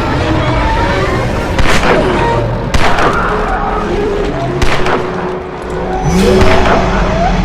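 Horror-film action sound mix: music under about four loud, sharp booming impacts, with gliding tones rising near the end.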